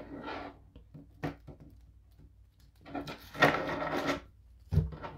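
A deck of cards being shuffled and handled: a short rustle, two light taps, then a longer rustle of about a second and a half, and a knock near the end.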